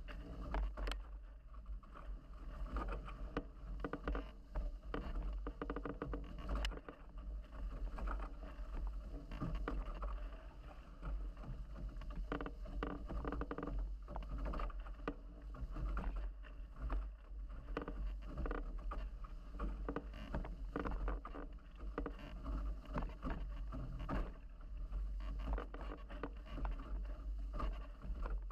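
Water rushing and splashing along the hulls of a Nacra 17 racing catamaran sailing fast under spinnaker, in an uneven wash with frequent surges as the hulls hit the chop. Under it runs a steady low rumble of wind buffeting the microphone.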